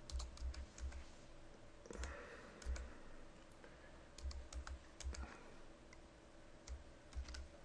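Computer keyboard typing: faint keystrokes in short irregular runs with pauses between them.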